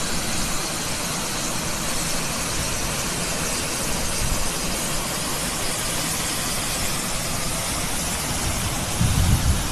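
Steady outdoor hiss with no clear single source. From about nine seconds in, uneven low rumbling gusts of wind hit the microphone.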